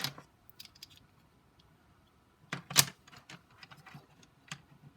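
Loose plastic pieces of a taken-apart barrel cube puzzle clicking and clacking as they are picked up and set in place, in scattered sharp clicks with one louder clack about halfway through.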